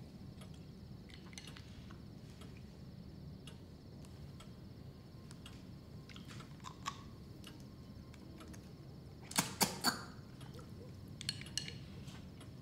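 Snail shells and tableware clinking against a ceramic bowl during a meal, with soft scattered clicks and then three sharp clinks close together about nine and a half seconds in, followed by two more a second or two later.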